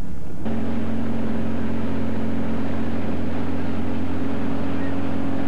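A boat's motor running steadily, a constant even drone that cuts in suddenly about half a second in.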